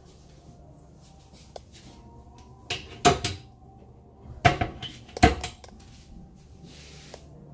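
Built-in cabinet doors being opened and shut: a few sharp clacks and knocks, one cluster about three seconds in and two more at about four and a half and five seconds.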